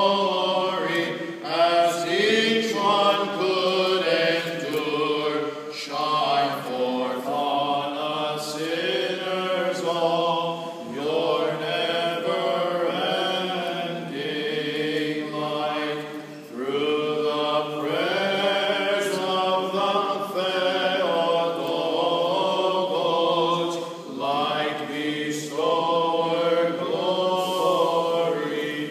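Orthodox chant: voices singing a slow hymn, with long held notes that bend from one pitch to the next.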